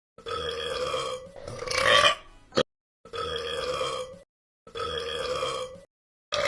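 A person burping: a run of about five belches, each lasting a second or so, at a steady pitch and separated by short silent gaps.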